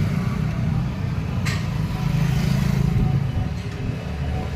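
A car engine running at a steady idle, with one short sharp click about a second and a half in.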